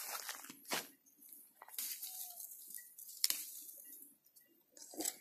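Irregular rustling and crackling of footsteps through dry, overgrown grass and weeds.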